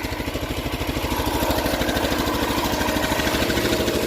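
Case Ingersoll garden tractor's engine running steadily with an even, rapid pulse.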